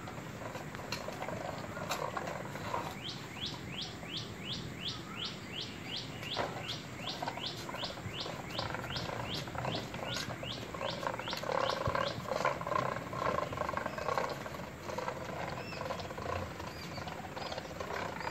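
A small child making growling engine noises with his voice while pushing a plastic toy tractor across a concrete floor. Partway through, a fast run of high, falling chirps, about three or four a second, sounds for several seconds.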